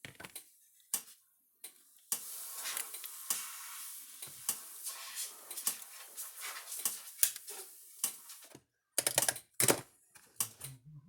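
Bench handwork while desoldering indicator bulbs from a fence charger's circuit board: scattered small clicks and taps, with a hissy rustle for several seconds in the middle and a run of sharper clicks near the end.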